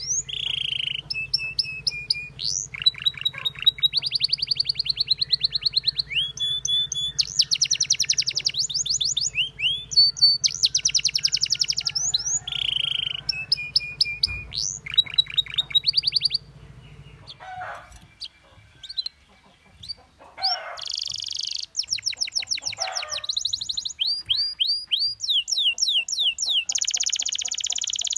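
Domestic canary singing: long rapid trills of repeated rising notes, changing from one trill to the next every second or two. The song breaks off for a few seconds about two-thirds through, then resumes.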